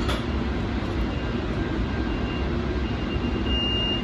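Steady low rumble and hum inside the cab of a San Diego Trolley light-rail car standing still. There is a sharp click right at the start, and a high steady electronic beep begins near the end.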